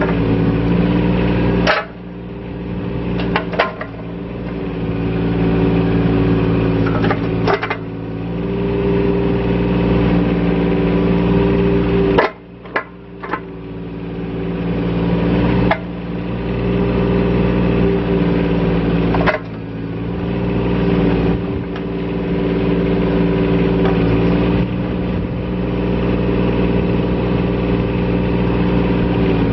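Yanmar B12 mini excavator's 14.5 hp diesel engine running under hydraulic load as the boom, arm and bucket are worked. The engine sound swells and then drops abruptly several times as the controls are moved, with a few sharp knocks from the machine.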